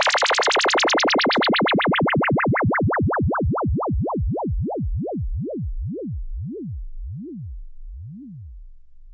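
Synthesized laser sound effect: a pitch that sweeps up and down over and over, the sweeps getting slower and lower as it goes, from a fast high warble to slow low swoops about one a second, fading away.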